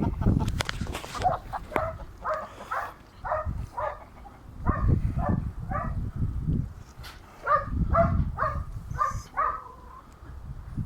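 A dog barking repeatedly in quick runs of short barks, several a second. Low rumbling noise comes and goes underneath.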